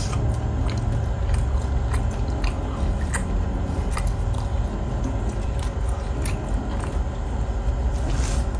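Close-miked chewing and mouth sounds of a person eating, with small sharp clicks and smacks every half second to a second, over a steady low rumble.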